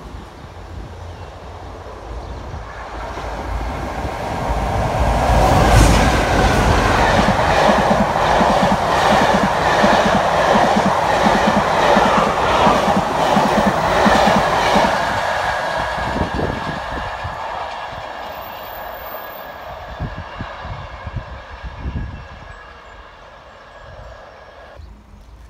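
A passenger train passing close by the platform at speed: the noise builds, peaks with a regular clickety-clack of wheels over the rail joints as the coaches go by, then fades away.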